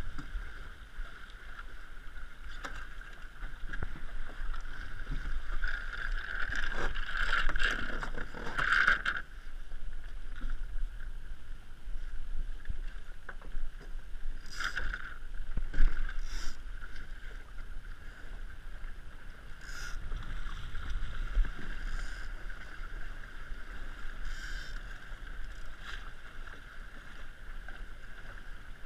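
RS100 sailing dinghy under way: water rushing and splashing along the hull, with wind buffeting the microphone. Sharper splashes stand out, a cluster about seven to nine seconds in and a few more later.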